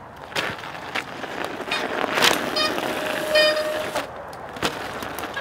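Screw-studded mountain bike tyres scraping and crunching on ice, with sharp knocks as the wheels come down during stoppies and hops. About halfway through, two short squealing tones come a little under a second apart.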